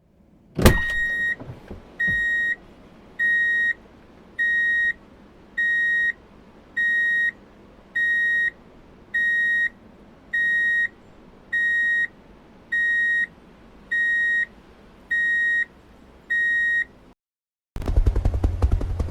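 Electronic beeper of a toy construction vehicle: a click, then a steady run of about thirteen even, high beeps a little over once a second, which stops abruptly. A louder, low rumbling sound starts near the end.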